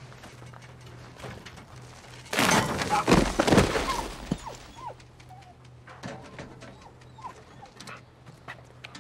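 A dog whimpering in several short, high whines that fall in pitch, following a loud rough rush of noise about two seconds long, over sparse footsteps crunching on gravel.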